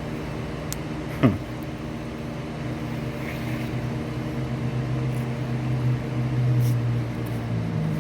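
A machine running with a steady low hum that grows somewhat louder past the middle. About a second in, a short sharp sound sweeps quickly down in pitch.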